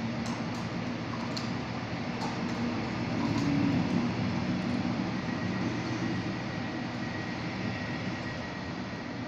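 Double-deck regional train coaches rolling slowly past on the rails as the train pulls out, a steady rumble of wheels on track that swells a little a few seconds in, with a faint high tone joining from about halfway through.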